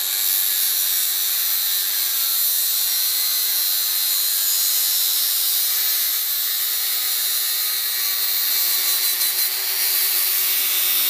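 Metabo 4.5-inch angle grinder with a 60-grit cutoff wheel cutting through the steel can of an oil filter. The grinding is steady, with a constant whine running under it.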